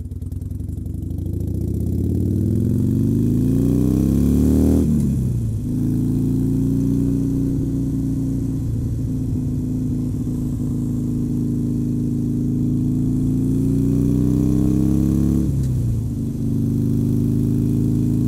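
Harley-Davidson Sportster Forty-Eight's air-cooled V-twin accelerating hard up to highway speed. The engine note rises, drops at an upshift about five seconds in, climbs slowly, drops at a second upshift near the end, then runs on steadily at cruising speed.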